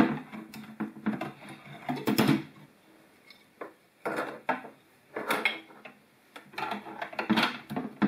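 Fluorescent tubes being twisted out of their end sockets and lifted from a metal light fixture: clicks, knocks and light clatter of glass tubes against the fixture and the wooden table, in several short spells with quiet gaps between.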